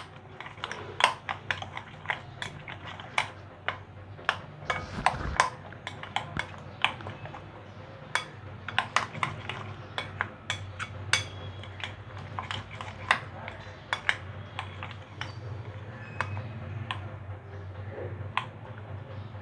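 A metal spoon stirring a thick yogurt-and-spice batter in a plate, clicking and scraping against the plate irregularly, a few times a second, over a low steady hum.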